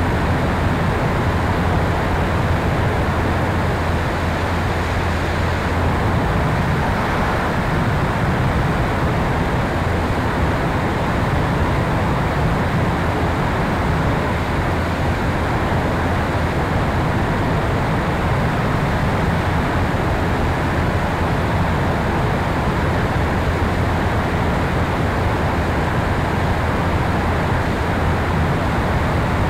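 Steady rush of airflow over a camera mounted on the tail of an electric Sonex Xenos motorglider in cruise, with the low drone of its electric-driven propeller underneath.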